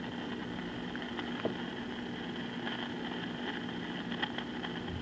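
Juliette NA-1114 transistor radio's audio amplifier at full volume with the input to its volume control disconnected, giving only a steady low hum and hiss, with a few faint ticks. The rushing noise being hunted is not heard, which the repairer takes to mean it arises in the radio section ahead of the volume control.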